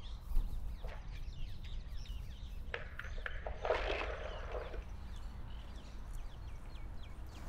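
Outdoor park ambience: birds chirping here and there over a low steady rumble, with a few light clicks and a brief rustle about four seconds in.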